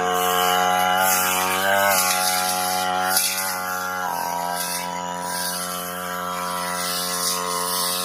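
Brush cutter's small engine running under load as its blade cuts grass, its engine speed shifting a couple of times, with short swishing bursts as the blade goes through the stems.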